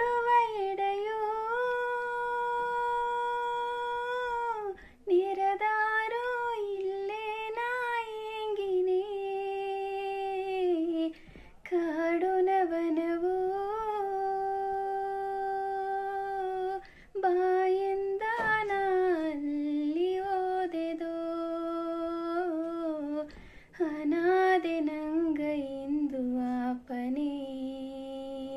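A woman singing solo without accompaniment, in long held notes that glide and waver in pitch, with a short breath between phrases every few seconds; the last phrase sinks lower near the end.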